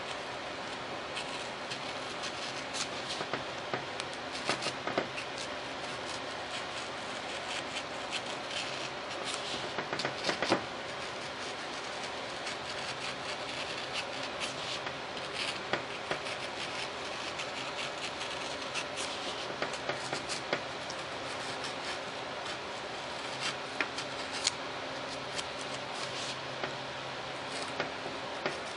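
Hobby knife blade cutting curved scallops through a paper plan into foam board: irregular short scratching and crackling strokes over a steady hiss, with a louder run of strokes about ten seconds in.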